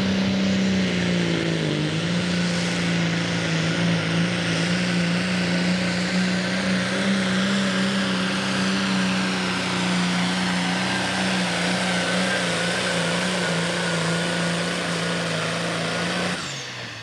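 Turbocharged diesel Pro Stock pulling tractor running wide open under load as it pulls the weight sled: a steady engine note with a high turbo whine over it, dipping briefly in pitch about two seconds in. Near the end the throttle is cut and the engine sound drops away abruptly, the turbo whine beginning to fall.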